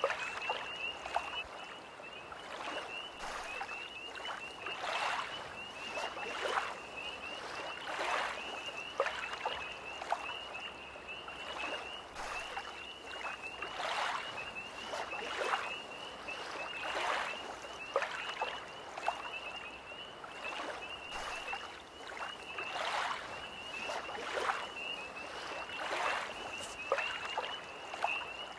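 Small lake waves lapping and splashing at the shore in irregular little surges, about one every second or two. Behind them a chorus of tree frogs keeps up a steady high trill.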